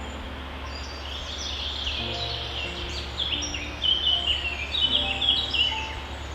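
Songbirds chirping and twittering in quick, overlapping high-pitched phrases, busiest and loudest in the second half, over a steady hiss and low hum, with soft sustained background music notes underneath.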